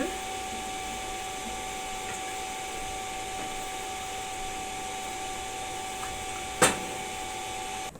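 Steady hiss with a constant hum tone, machine-like and unchanging, with one sharp click about six and a half seconds in; the noise cuts off abruptly just before the end.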